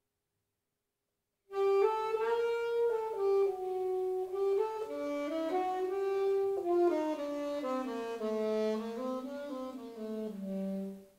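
Solo saxophone playing a slow melody, coming in about a second and a half in after silence. The phrase moves note by note and gradually falls in pitch, ending on a long low note near the end.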